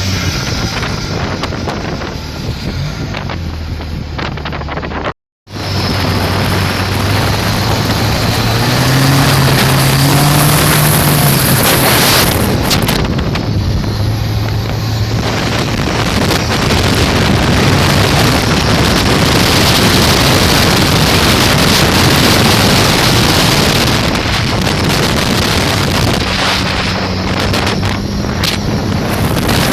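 Motorboat with a turbocharged Volvo B21 four-cylinder inboard engine, running under way. It speeds up with a rising engine pitch about eight seconds in, then runs loud and steady at planing speed. Water rushes and wind buffets the microphone, and the sound drops out briefly about five seconds in.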